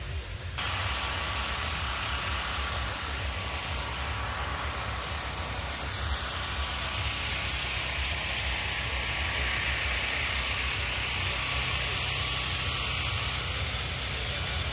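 A steady low mechanical rumble with a steady hiss over it, stepping up about half a second in and then holding even.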